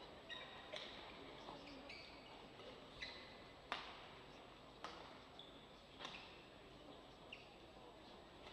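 Badminton rally: sharp racket strikes on the shuttlecock about once a second, with short squeaks of the players' shoes on the court between hits.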